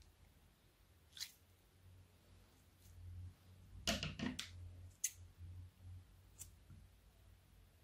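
Slime-filled latex balloons and scissors being handled: a few short, sharp squeaks and clicks, with a louder cluster about four seconds in, over a low steady hum.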